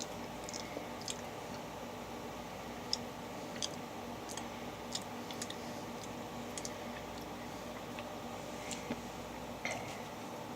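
Mochi coated in kinako and chocolate being chewed: scattered soft, sticky clicks and squishes over a steady low hum.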